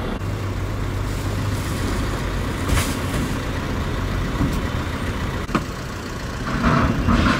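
A vehicle engine idling with a steady low hum. There is a sharp knock about three seconds in and a click a little after halfway.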